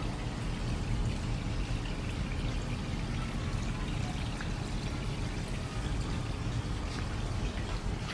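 Water pouring in a steady stream, rinsing a mountain bike after a wash.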